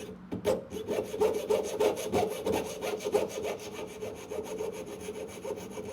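Jeweler's saw cutting through a small metal tube by hand, in fast even strokes about five a second, with a steady ringing note under them.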